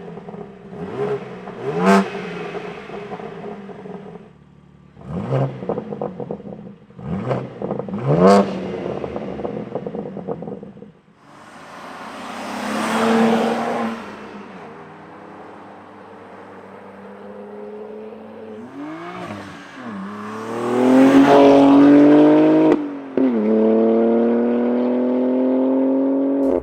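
Exhaust of a BMW G80 M3's S58 twin-turbo inline-six, fitted with a Milltek 102 mm single mid-pipe secondary cat bypass. It is blipped three times in the first eight seconds, then rushes past about twelve seconds in. From about nineteen seconds it accelerates under load with a steadily rising pitch.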